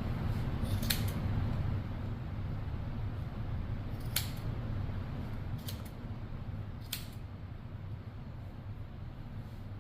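Scissors snipping through the looped yarn of a pom-pom: four separate sharp snips spread over several seconds, over a steady low hum.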